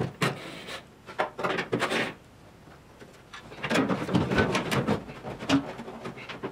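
Knocks, clicks and rattling of trim parts and wiring being pulled out of a stripped Triumph GT6's rear luggage area, with parts bumping the metal body shell. A few separate knocks come first, then a short lull, then busier clatter and rustling from about halfway through.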